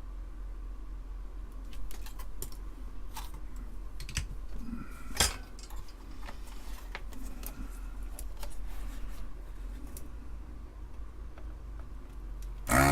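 Light metallic clicks and taps of soldering tools working on a circuit board, with one sharper click about five seconds in, over a low steady hum. A loud electric buzz starts right at the end.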